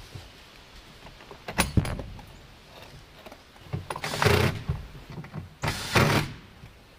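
A new pontoon boat seat handled and pushed onto its base: a sharp knock, then two short scraping rushes about four and six seconds in.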